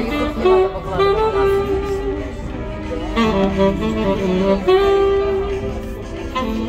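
Instrumental music: a melody of held notes over accompaniment.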